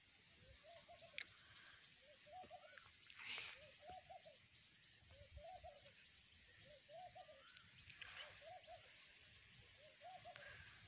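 Faint bird calls: a group of two or three short, low notes repeated about every second and a half, with a few soft clicks in between.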